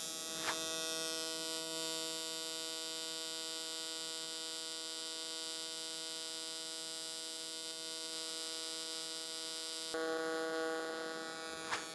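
AC TIG welding arc on aluminum, set to 200 amps at 171 Hz, giving a steady high-pitched buzz over a hiss. A small click comes about half a second in, and the buzz gets a little louder near the end.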